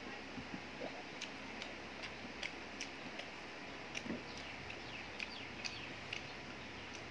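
Close-up mukbang eating sounds: irregular wet clicks and smacks of chewing and of fingers mixing rice and curry on a plate, about a dozen scattered, over a steady background hum.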